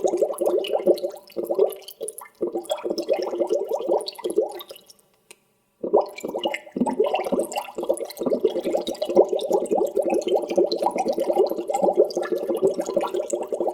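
Water bubbling: a dense, rapid stream of small bubbles popping and gurgling. It stops for about a second midway, then starts again.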